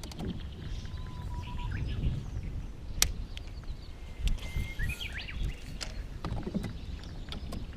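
Outdoor river ambience heard from a float boat: a steady low rumble, with faint bird chirps and a few sharp clicks, the loudest click about three seconds in.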